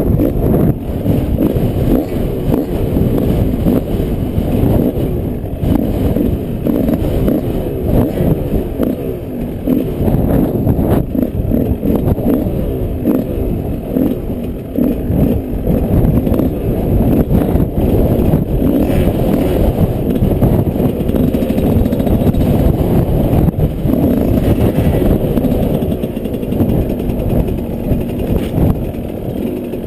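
Yamaha 125 motorcycle engine running hard while ridden off-road, its pitch rising and falling with the throttle throughout, over a low rumble.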